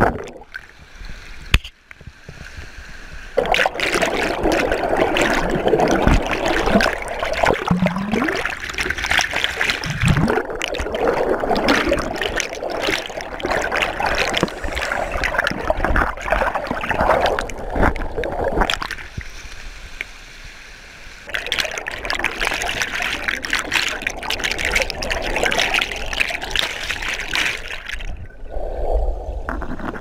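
Fast, swollen stream water rushing and churning, heard underwater with splashing and gurgling turbulence. The rush is lower for the first few seconds and dips again briefly about two-thirds through.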